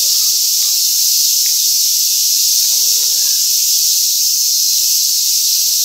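A steady, loud, high-pitched chorus of cicadas.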